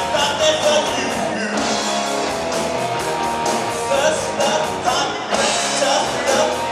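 Live rock band playing an upbeat 1980s-style rock song: electric guitars, bass and a drum kit keeping a steady beat, with a singer on vocals.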